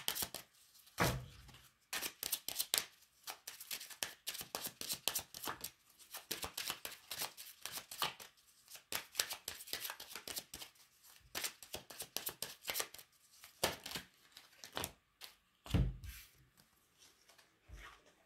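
A deck of Lenormand cards being shuffled by hand: a long run of quick, uneven clicks and rustles of card against card, with a couple of duller knocks along the way, as the cards are mixed until some jump out of the deck.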